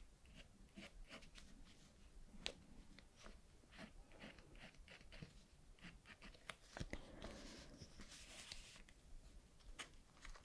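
Faint scratching strokes and light taps of colouring on paper in an antistress colouring book, with a longer run of scratchy strokes about seven to nine seconds in.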